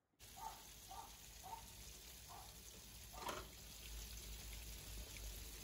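Faint sizzling of hot juices in a baking tray of roasted quail and potatoes, a steady hiss with a few soft pops and one sharper crackle about three seconds in.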